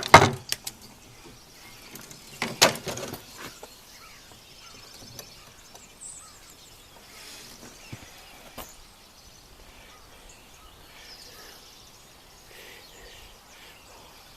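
Metal clanks and knocks of tools and bolt on the snowblower gearbox: a loud cluster right at the start and another about two and a half seconds in, then two faint taps around eight seconds in. After that comes a low, steady outdoor background with faint bird chirps.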